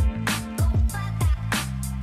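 Electronic background music with a heavy beat: deep, booming kick drums and sharp snare hits over sustained bass notes.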